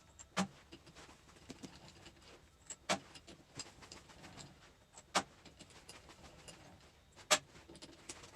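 Hand tools and parts knocking and clicking against each other as a hydraulic control valve is taken apart: four short sharp knocks roughly two seconds apart, with small ticks and rustles between.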